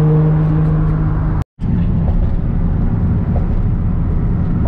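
Car engine and exhaust droning steadily at highway speed, with tyre and road noise, heard from inside the cabin. The sound drops out for a moment about a second and a half in, then comes back as a rougher low rumble.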